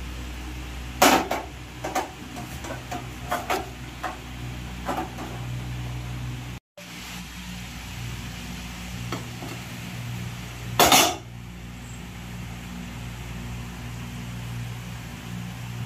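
Metal cooking vessels clinking and knocking as they are handled: a few light clinks in the first five seconds and one loud clank about eleven seconds in, over a steady low hum.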